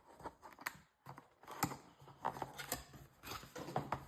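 A package being unpacked by hand: a string of irregular small clicks, crinkles and taps from packaging being handled.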